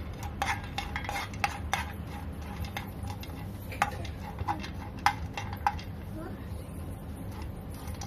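Spatula stirring chopped cashew nuts in a nonstick frying pan, clinking and scraping against the pan. The clinks come several times a second at first, thin out after about three seconds, and stop about two seconds before the end.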